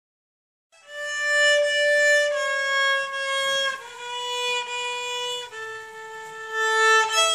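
A child bowing slow, sustained notes on a violin, each held a second or more, stepping down in pitch from note to note and then rising to a higher note near the end. The playing starts after a short moment of silence.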